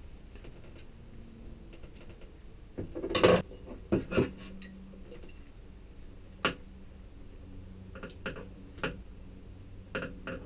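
Metal galley faucet being handled on a table: knocks and clinks of the faucet body and parts against the tabletop, with a loud cluster about three seconds in, two more a second later, then scattered lighter taps.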